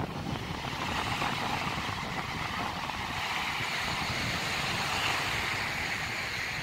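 Ocean surf washing onto a sandy beach, a steady rushing noise that swells a little in the middle, over a low rumble of wind on the microphone.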